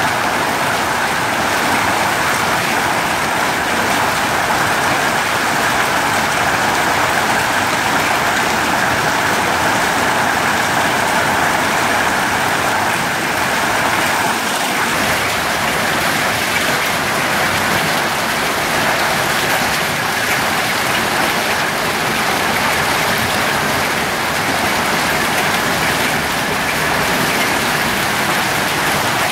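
Hailstorm: hail and rain falling on wet paving and building walls, a steady, even hiss.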